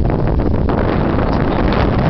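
Strong wind buffeting the microphone aboard a small sailboat under sail, a loud steady rumbling rush that never lets up.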